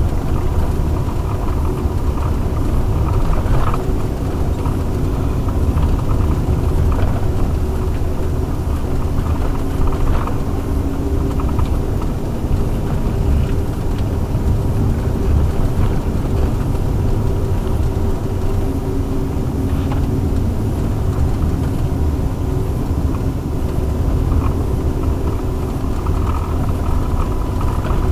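Steady low rumble of tyre and road noise inside the cabin of a Toyota Previa converted to electric drive, travelling on a snow-covered road with no engine running. A few faint steady tones sit above the rumble, with an occasional faint click.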